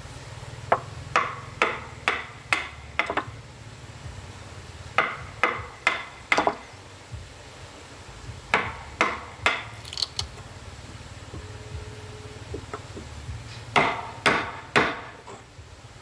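Hammer striking wood in four runs of three to six blows, the blows about half a second apart with pauses of a second or two between runs.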